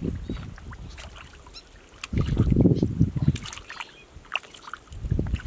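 Wet mud and shallow water squelching and splashing as bare hands dig and grope through a muddy puddle. Wind gusts on the microphone make a low rumble that swells about two seconds in.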